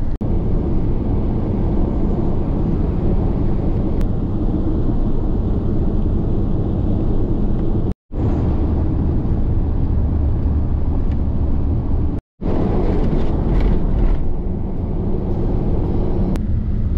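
1999 Ford Ranger pickup driving, its engine and tyre noise a steady low rumble heard inside the cab. The sound drops out briefly twice, about 8 and 12 seconds in, where the footage is cut, and in the last few seconds the truck is on a dirt road.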